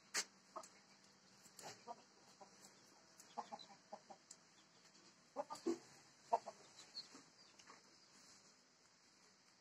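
Faint farmyard animal sounds: short, scattered clicks and brief calls, coming singly and in small clusters a few times a second at most.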